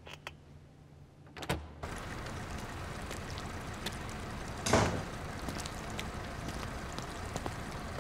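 Quiet room tone with a couple of light clicks, then a steady outdoor background hiss. About halfway through, a heavy wooden front door shuts with a thud, the loudest sound.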